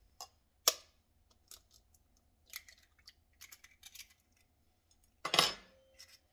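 An egg cracked with a sharp tap of a fork about a second in, then a few faint crackles as the shell is pried apart over a glass bowl. Near the end a metal fork clatters down onto a stone countertop with a brief ring, the loudest sound.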